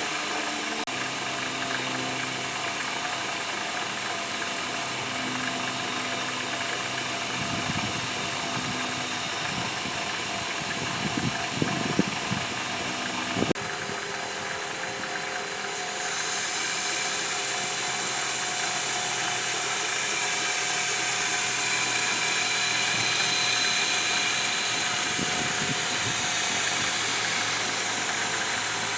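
A workshop machine running steadily with a hissing, grinding noise. There are a few sharp knocks around the middle, and the hiss grows brighter and a little louder about halfway through.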